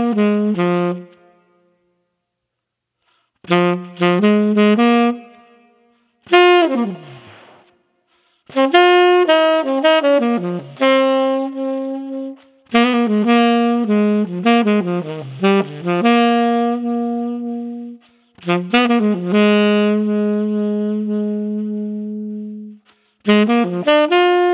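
Tenor saxophone played solo, an Ishimori Woodstone tenor with a Mouthpiece Cafe Espresso mouthpiece (7* tip opening), Rico H ligature and Boston Sax Shop 3 reed. It plays short jazz phrases with brief silences between them; several end on a long held low note, and one falls off in a downward smear.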